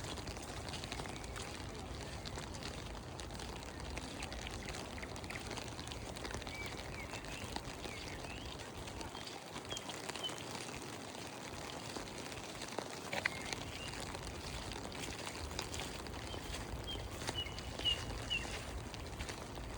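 Steady rain with short bird chirps now and then, and a couple of brief sharper ticks.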